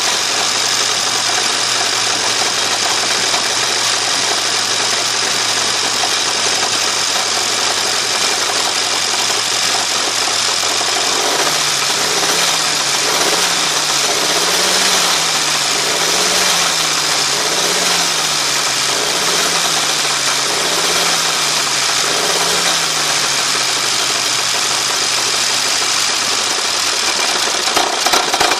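1935 Austin Seven Nippy's side-valve four-cylinder engine running at a steady idle. After about eleven seconds it is revved up and down gently, about once every two seconds, some eight times, then settles back to idle. This is a noise from the front section of the car that the owner is drawing attention to.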